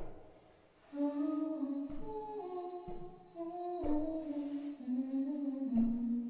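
A voice humming a slow, lullaby-like melody, each note held and the tune stepping gradually downward.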